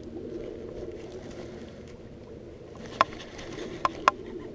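Boat motor running steadily, with a few sharp clicks about three and four seconds in.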